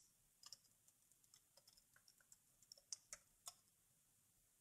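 A handful of faint, separate keystrokes on a computer keyboard, spread over a few seconds of near silence, as a shell command is typed.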